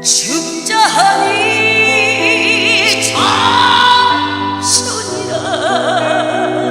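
Music: a singer holding long notes with a wide vibrato over sustained accompaniment.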